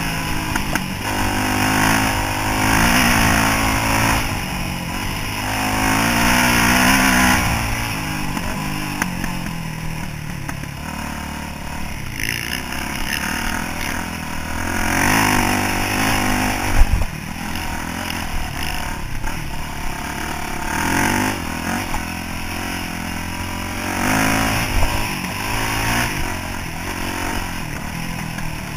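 Yamaha YZ426F four-stroke single-cylinder dirt bike engine, close up from the rider's chest, revving up and easing off again and again as the rider works the throttle through the gears. One sharp knock a little past halfway.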